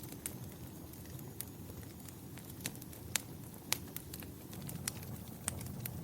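Fire crackling in a fireplace: scattered sharp pops and snaps over a steady low rumble of the flames, the two loudest pops about halfway through.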